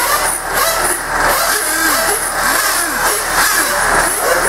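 Several nitro RC race cars' small glow-fuel engines running at high revs on the track, their pitch rising and falling in many overlapping sweeps as the cars accelerate, brake and pass.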